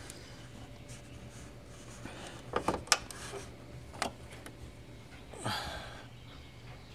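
Sharp metallic clicks from a VW's hood-release latch spring being pulled by hand: a quick cluster of clicks a little over two seconds in and another click about four seconds in, as the latch is worked open. Near the end, a short breathy exhale of effort.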